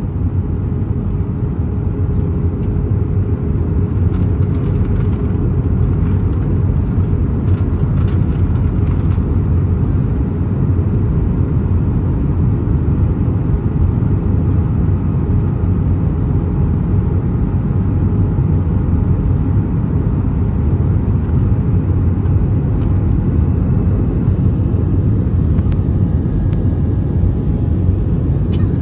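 Steady cabin noise inside an Airbus A320-family airliner on approach with flaps extended: engine hum and airflow rushing past, mostly low, with a faint steady whine over it.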